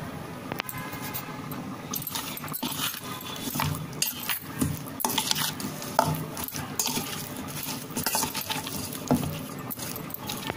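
Metal spoon stirring and scraping in a stainless steel bowl, working a wet curd-and-spice marinade into raw chicken legs: irregular clinks and scrapes, starting about two seconds in.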